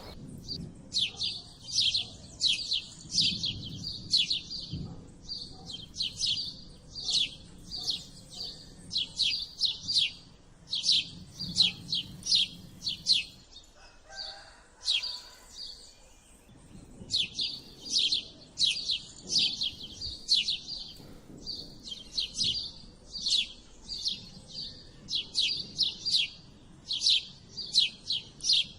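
House sparrows chirping: a long run of short, sharp cheeps, two or three a second, broken by a pause of about three seconds midway.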